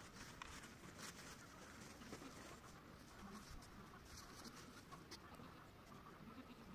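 Near silence: faint outdoor ambience with scattered light clicks.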